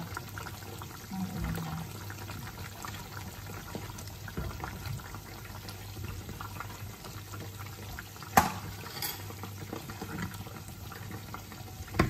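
Chicken afritada simmering and bubbling in a pot, with soft knocks as halved potatoes are dropped into the sauce and stirred in with a spoon, and one sharp knock about eight seconds in. A steady low hum lies under it.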